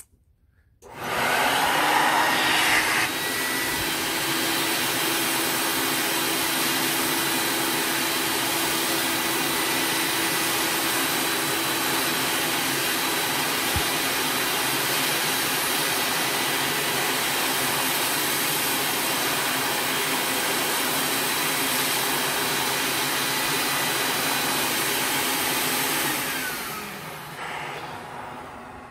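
Shop vac running the suction of a Squeaky Clean MK3 record-cleaning machine's vacuum arm, pulling rinse water off a record. It switches on about a second in, runs steadily, then is switched off near the end and winds down, its hum falling in pitch.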